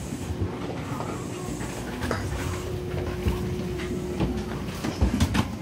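Inside a new-type Tokyo Monorail car standing at the platform: the steady hum of the car, with a faint held tone in the middle. A few sharp knocks come about five seconds in.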